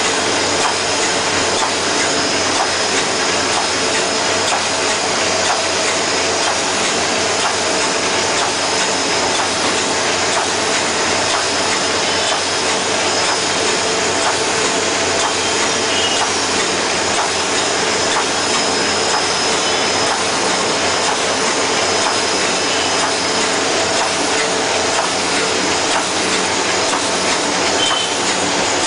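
Envelope-making machine, Model 820, running steadily while it produces envelopes: a loud, continuous, even mechanical noise that does not change.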